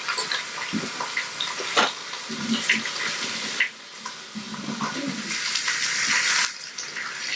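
Kitchen sink faucet running as hands are rinsed under it, in two spells with a short break between; the second spell is louder and shuts off suddenly near the end.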